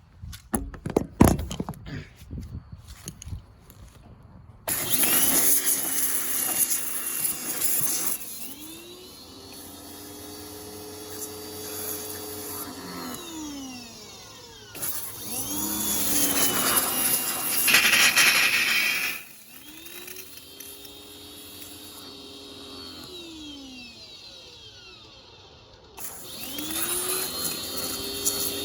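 A pressure washer working in three runs. Its motor whines up to speed, holds, then winds down each time, and the water jet hisses loudly as it sprays. A few knocks and clicks come before the first run.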